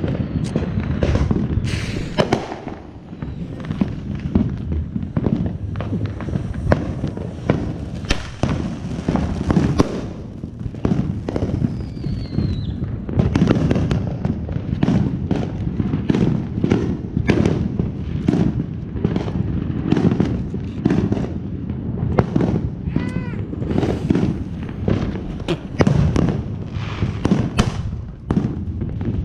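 Consumer fireworks going off: a dense, irregular run of sharp bangs and crackling pops, with a brief falling whistle about twelve seconds in.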